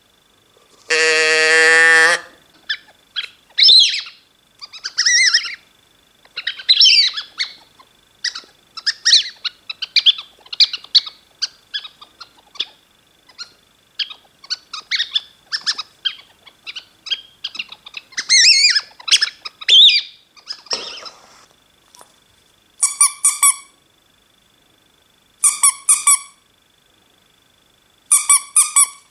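Novelty animal-sound toys worked by hand. About a second in, a tip-over can noise maker gives one pitched, buzzy call. After that a squeezed toy makes a long run of quick, high bird-like chirps, and near the end a small squeeze toy gives three short squeaks.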